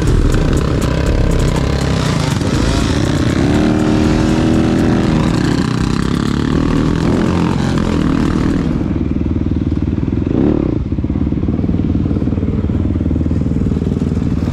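Yamaha dirt bike engine running under way on a trail ride, revving up and down as it changes pitch, with other ATVs and dirt bikes running close by.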